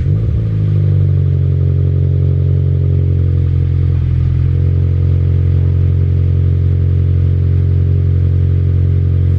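Subaru BRZ's flat-four boxer engine idling through a newly installed Invidia N1 exhaust, just after start-up: the revs settle in the first second, then hold a steady idle.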